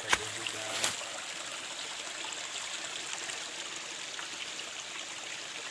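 Steady, even rushing hiss of forest ambience, with a sharp knock just after the start and a lighter one a little under a second in.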